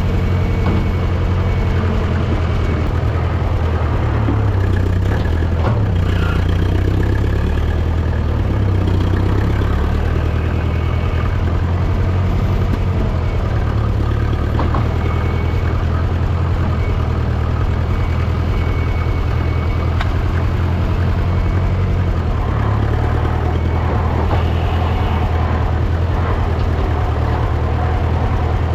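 International Harvester 300 Utility tractor-loader's engine running and working, its pitch shifting up and down now and then, with a little exhaust popping that the owner takes as a sign it is running super rich.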